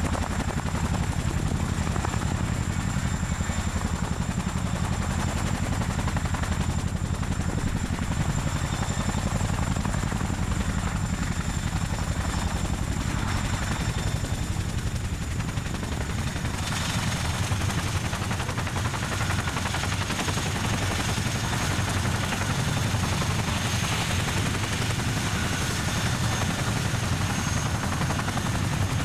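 CH-47 Chinook tandem-rotor helicopter setting down and running on the ground: a rapid, steady beat from its rotor blades with a high turbine whine over it. The whine steps slightly lower about halfway through.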